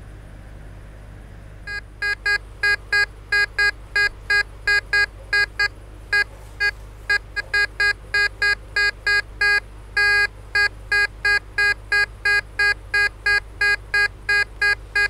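Tesoro DeLeon metal detector sounding short target beeps, two to three a second, as its search coil is swept back and forth over a buried object. There is one longer beep about ten seconds in. The signal is slightly jumpy, with a target ID reading of about 60.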